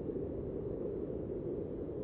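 Floodwater of a creek in spate rushing by steadily, a low, even rush with no breaks.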